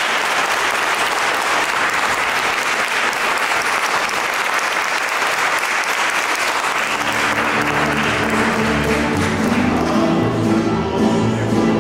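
Audience applauding. A little past halfway, music with long held notes and a bass line comes in under the applause.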